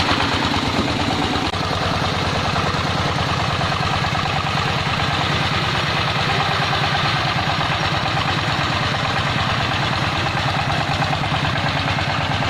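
Single-cylinder diesel engine of a Vietnamese công nông farm truck running with a steady, even chugging.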